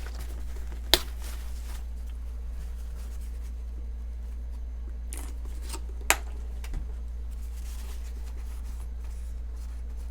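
Small parts and tools being handled on a work mat during knife reassembly: two sharp clicks about five seconds apart and a few softer taps, with faint rubbing from wiping, over a steady low hum.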